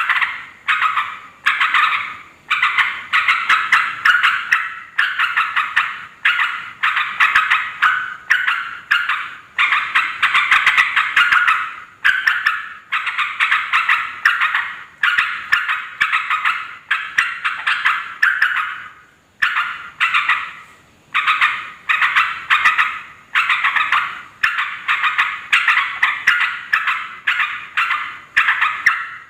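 Yellow-vented bulbuls chattering noisily: rapid runs of bubbly notes in bursts of one to two seconds, repeated one after another with short breaks.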